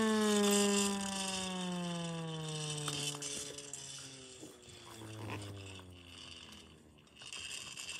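Hand-crank single-tone air raid siren winding down after cranking stops: one falling tone that fades over about four seconds. Then a few clicks and knocks from the siren's mechanism as it is turned and handled.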